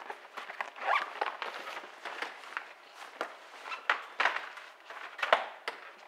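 Irregular rustling, clicks and knocks of things being handled, with louder knocks about a second in, around four seconds and a little past five.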